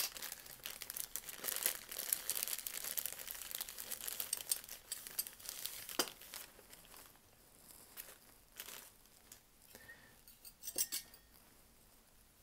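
Plastic packaging crinkling and rustling as palette knives are unwrapped by hand, busiest in the first half, then thinning out to scattered light clicks and clinks, with a small cluster of them near the end.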